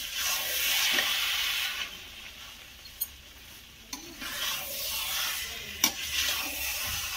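A metal spoon stirring and scraping thick, grated-carrot halwa (gajar ka halwa) around a metal kadhai, in two spells of scraping with a quieter pause between. Three sharp clicks come as the spoon knocks the pan.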